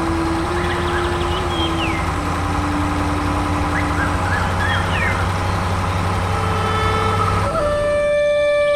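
A steady low mechanical hum with short, high bird-like chirps over it. About seven and a half seconds in, the hum stops and a flute-like melody begins.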